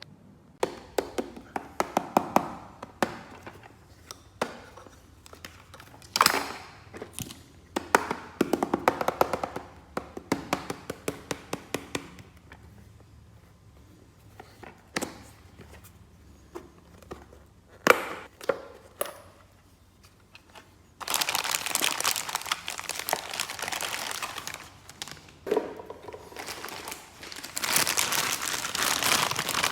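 Hard plastic toy pieces handled and set down, with clicks, knocks and rattles. About two-thirds of the way through, plastic packaging starts crinkling steadily as it is unwrapped.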